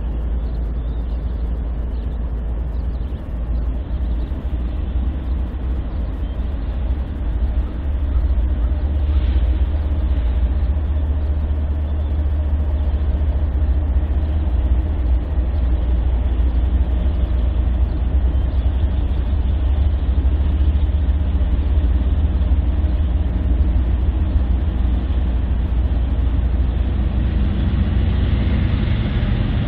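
Diesel locomotive engines running steadily with a deep rumble, growing louder about eight seconds in.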